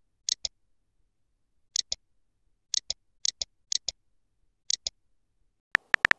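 Texting-app keyboard tap sounds: short, light clicks coming in pairs at uneven intervals, then a quicker run of sharper taps near the end as a new message is typed.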